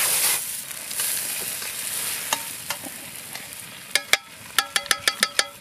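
Food sizzling in a frying pan over an open wood fire, the sizzle fading away, then a metal spoon stirring a stew and clinking against the pan in a quick run of ringing taps near the end.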